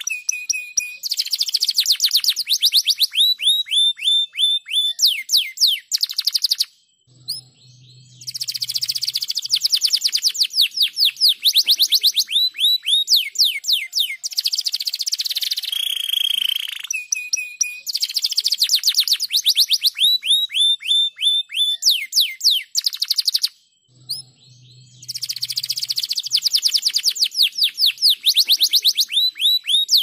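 Domestic canary singing: long runs of rapid high trills and rolling, sweeping notes, with short pauses about seven seconds in and again near the end.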